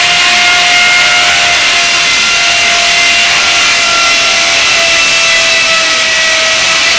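Electric drill boring a hole into a masonry wall for a wall plug, its motor running steadily under load with a steady whine.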